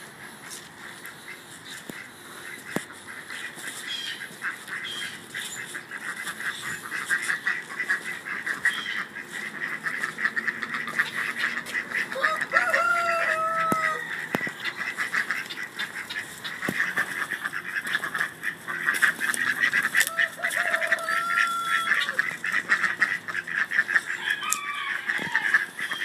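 Backyard poultry calling: a rooster crows twice, about halfway through and again a few seconds later, over a steady rapid chatter of flock calls that builds up after the first few seconds.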